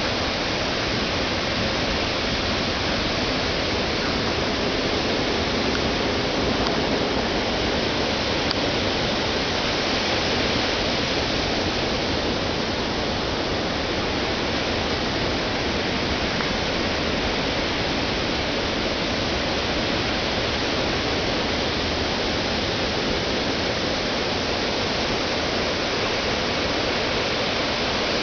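Ocean surf breaking on a sandy beach, heard as a steady, even rush of noise with no single wave crash standing out.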